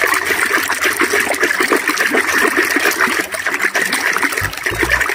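A hand stirring and sloshing through foamy soapy water: a steady run of small wet splashes.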